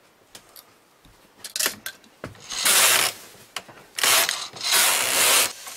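Brother KH801 knitting machine carriage pushed across the needle bed knitting rows, a clattering mechanical sweep heard twice about a second apart after a few light clicks.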